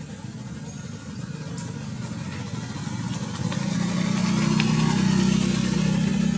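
An engine running with a steady low hum, getting louder from about three and a half seconds in.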